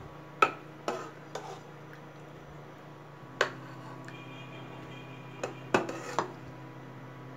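Metal spoon clinking against a drinking glass and an aluminium pudding pan while scooping pudding into the glass: scattered sharp clinks, three in the first second and a half, one a little after three seconds and a cluster near six seconds, over a faint steady low hum.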